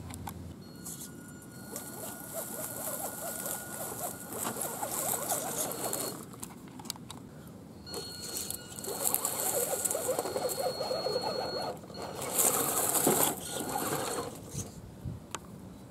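Scale RC 4x4 truck driving over dirt and dry leaves while towing a log trailer: a thin steady electric-motor whine over the crackle and crunch of the tyres. It runs in two stretches with a short stop around six seconds in, and a louder scrabbling burst comes near the end.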